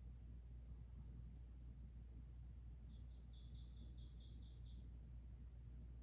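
Faint bird song played through a TV: a quick series of about ten evenly spaced high notes, lasting under two seconds, starting about halfway through.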